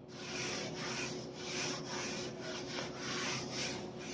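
Repeated rubbing strokes of naan dough being worked on a board, about three a second.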